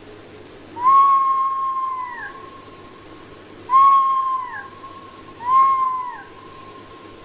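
Three drawn-out, whining animal cries used as a fox-spirit sound effect, each holding one pitch and then dropping off at the end. The first is the longest, and the other two follow about two and four seconds later. A faint steady tone hums at the same pitch between the cries.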